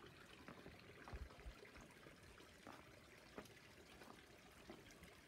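Near silence with a faint steady trickle of water, a few soft ticks, and two low thumps a little after a second in.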